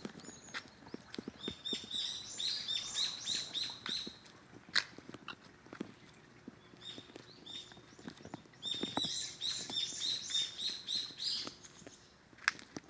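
Small birds chirping in quick runs of short, downward-sliding high notes, in two long bursts: one in the first few seconds, another a little past the middle. A few sharp clicks are scattered among them, the loudest about a third of the way through.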